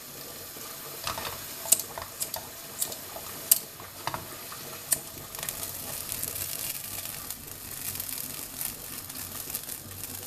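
Vodka-laced soffritto sizzling in a frying pan over a gas flame as it is flambéed, the alcohol burning off while the pan is swirled. A steady hiss runs under several sharp ticks in the first half.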